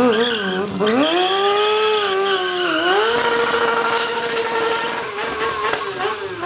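Sport motorcycle engine revved hard on a launch, climbing about a second in to a high, held pitch, dipping briefly about three seconds in and climbing back, with the rear tyre spinning on the tarmac. It gets slightly quieter near the end as the bike moves off.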